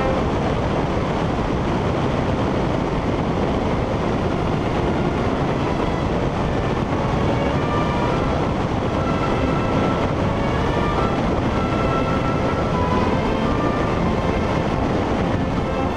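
Motorcycle riding at steady highway speed, heard from the bike itself: a constant rush of wind with engine and road noise beneath it.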